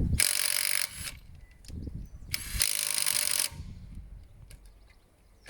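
Cordless impact wrench hammering on a car wheel nut in two bursts of about a second each, undoing it quickly.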